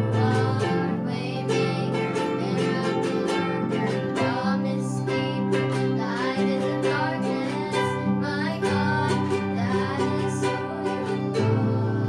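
A praise and worship song: singing over a plucked-string accompaniment.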